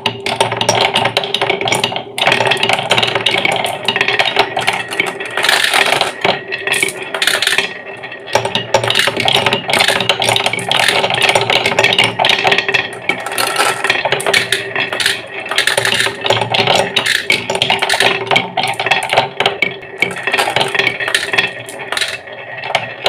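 Many marbles rolling and clattering down a wooden marble run, a dense run of clicks and rattles, over a steady mechanical hum.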